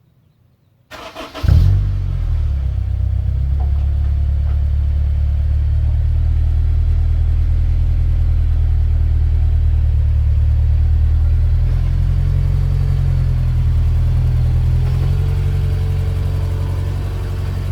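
Honda S2000's 2.2-litre four-cylinder engine starting after a brief crank about a second in, then idling steadily.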